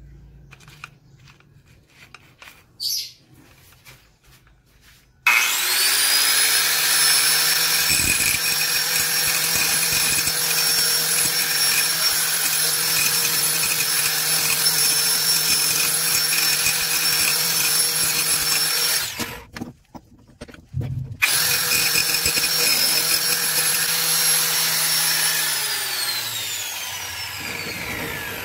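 Electric angle grinder with a cutting disc cutting through a steel flat bar held in a vise: it starts suddenly about five seconds in, spins up to a steady high whine with grinding hiss, stops for about two seconds, restarts, then winds down with falling pitch near the end.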